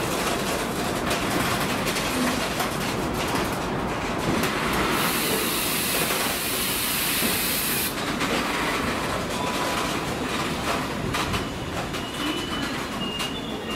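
Freight train of JNA bogie box wagons rolling past at speed, wheels clattering over rail joints in a steady rumble. A high hiss rises for about three seconds in the middle, and faint high wheel squeals come in near the end.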